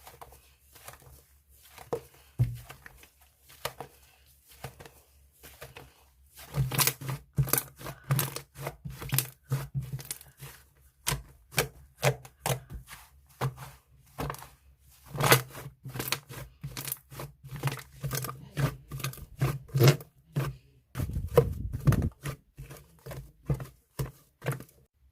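Soft, squishy slime being pressed and stretched by hand, giving a run of sticky clicks and pops. They are sparse and quiet at first, then come faster and louder from about six seconds in.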